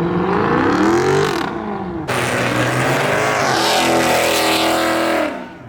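A car engine revving hard again and again during a burnout, its pitch rising and falling, with a harsh hiss joining in suddenly about two seconds in.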